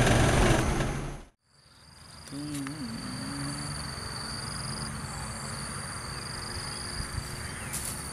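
Wind buffeting the microphone for about a second, cut off suddenly. Then steady, high insect chirring from the field, coming in long pulsing stretches, with a brief low wavering sound early on.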